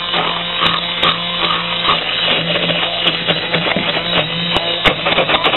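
Braun electric hand mixer running steadily with a constant motor hum, its beaters whipping thick cornbread batter in a bowl, with scattered clicks and knocks of the beaters against the bowl.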